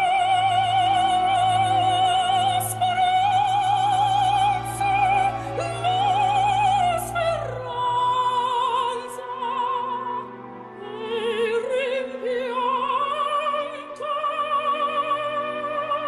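Operatic singing voice holding long notes with a wide vibrato, over a low sustained accompaniment. The melody steps down about halfway through, then climbs back up a few seconds later.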